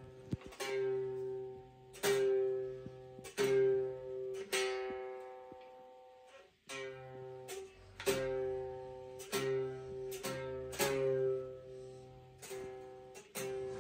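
A child's small pink toy acoustic guitar strummed slowly and unevenly, about a dozen strums across the open strings, each ringing out on the same unchanged chord before the next.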